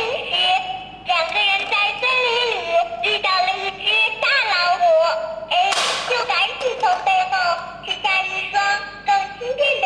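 Music with a high sung melody carried by a singing voice.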